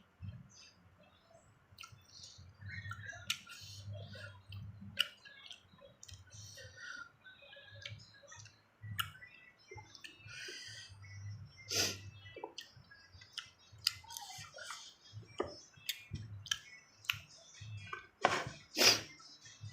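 Close-up eating sounds: crunchy bites and chewing of raw young cucumber and unripe green mango, with small wet mouth clicks. The sharpest crunches come about twelve seconds in and twice near the end.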